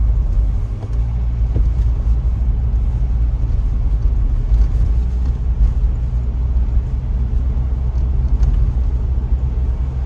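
Cabin noise inside a moving Mitsubishi Pajero Sport 2: a steady low rumble of engine and road noise, muffled by newly fitted sound insulation.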